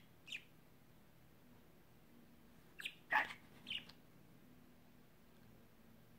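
Budgerigar giving a few short chirps: one brief chirp just after the start, then a cluster of three or four about three seconds in, the loudest a quick call sliding downward.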